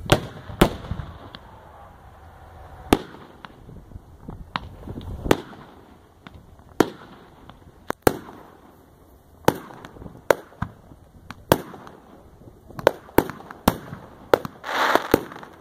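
Aerial fireworks going off: a string of sharp bangs at irregular intervals, well over a dozen, with a short hiss near the end.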